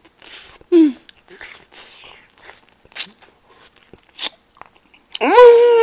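A person chewing and biting food close to the microphone, with wet crunching mouth sounds. A brief hummed sound comes about a second in, and a loud, drawn-out hummed "mmm" near the end.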